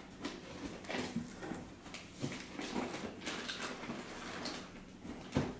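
Hands handling packaging inside a cardboard box, making scattered rustling, scraping and light clicks. A single sharper knock comes near the end.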